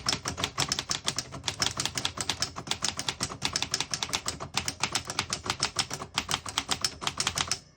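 1938 Remington Cadet manual portable typewriter being typed on in a fast, even run of keystrokes, the type bars clacking several times a second. There is a brief pause about four and a half seconds in, and the typing stops just before the end.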